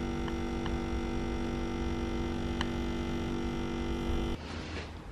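Nespresso capsule coffee machine's pump buzzing steadily as coffee pours into the cup, then cutting off suddenly about four seconds in as the brew finishes.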